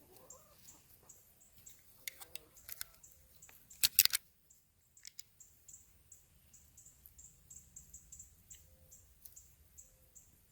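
Faint high chirping repeating several times a second, with a few sharp clicks about two seconds in and a short, louder cluster of clicks about four seconds in.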